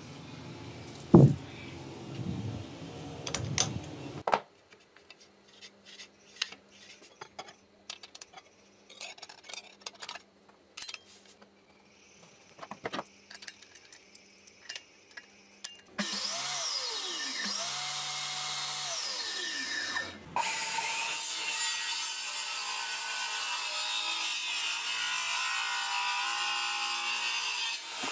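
Small metal clicks and taps as parts are fitted to a circular saw. Then, a little past halfway, the restored electric circular saw's motor and blade start running at speed with a steady high whine. The sound cuts out briefly and runs on again.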